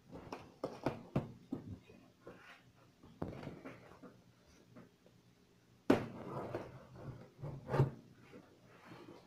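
Cardboard box being handled and cut open with a folding knife: irregular scraping, rustling and knocks. The loudest is a sharp knock about six seconds in.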